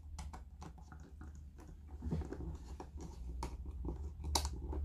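Small screwdriver scraping and clicking in the screw terminals of a plastic ceiling rose while a wire is fitted and tightened: a run of light scratches and clicks, the sharpest one near the end, over a low steady hum.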